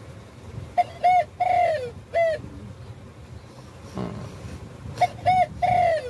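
Spotted dove cooing in two phrases, one about a second in and one near the end. Each phrase is a run of short arched coos, with the third note drawn out and falling. There is a faint knock in between.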